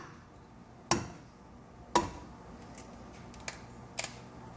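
An egg rapped twice against the rim of a frying pan to crack it: two sharp knocks about a second apart, then a couple of faint clicks as the shell is pulled open.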